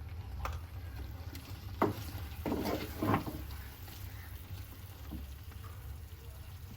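Spoon stirring spaghetti in a milk sauce in a pan, with a few sharp clinks and scrapes against the pan in the first half, over a steady low hum.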